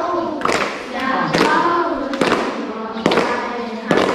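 A group of children singing a song together in unison, clapping their hands on the beat a little faster than once a second.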